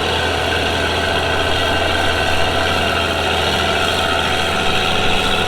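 Vehicle engine idling steadily, a constant low hum with no revving.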